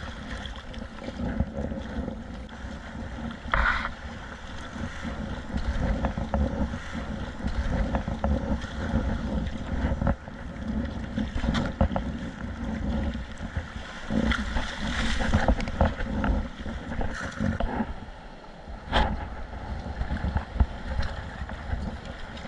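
Sea water sloshing and splashing around a kayak in waves, with short splashes scattered throughout and the level rising and falling. Wind rumbles steadily on the microphone.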